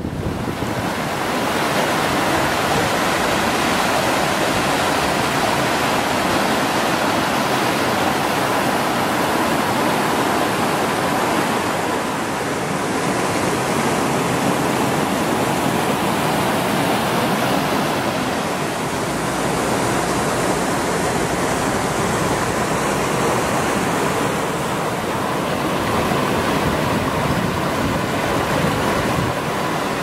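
Waterfall rushing over rocky rapids, a loud, steady rush of water.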